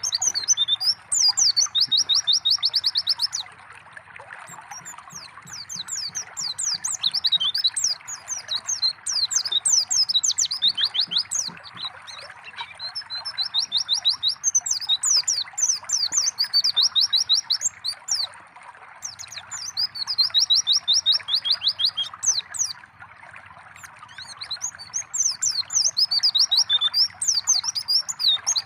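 White-eyes (pleci) singing in repeated phrases of quick high chirps, each ending in a fast even trill, with short pauses between phrases. A steady trickle of running water sounds under the song throughout.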